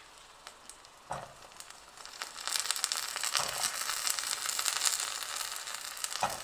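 Hot oil frying in a clay pot, faint at first with a couple of soft knocks. About two and a half seconds in, a loud crackling sizzle rises as halved kandangathiri (yellow-fruited nightshade) berries drop into the oil.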